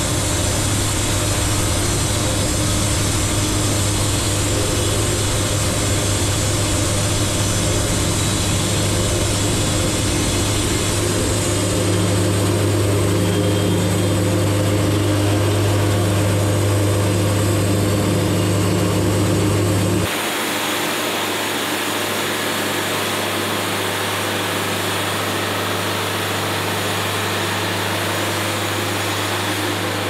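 Wood-Mizer LT70 bandsaw mill running, its band blade cutting through a board with a loud, steady drone. About two-thirds of the way through, the sound changes abruptly to a slightly quieter, steady running noise.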